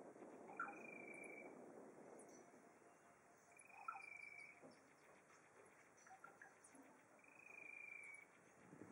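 Faint insect trill, likely a cricket or similar, outdoors: a steady high buzz about a second long, repeated three times at even intervals over a soft low background hum.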